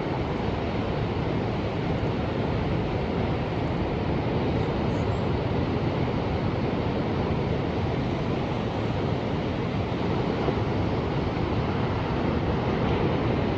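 Ocean surf: a steady wash of waves, with slow gentle swells in level and no single breaker standing out.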